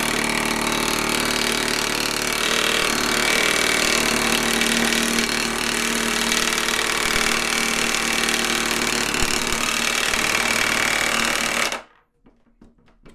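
Ingco 1,350 Nm 20V cordless impact wrench hammering steadily in reverse for about twelve seconds, trying to undo an M20 nut with stripped, seized threads. It stops abruptly near the end.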